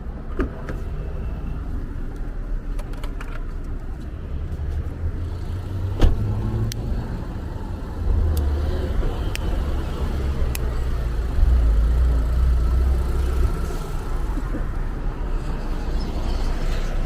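Car engine running with a steady low rumble that gets louder in two steps, about eight and about eleven seconds in. A single sharp knock sounds about six seconds in.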